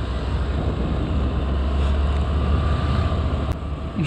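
Honda Dio scooter's small single-cylinder engine running steadily while riding, under a heavy low wind rumble on the microphone.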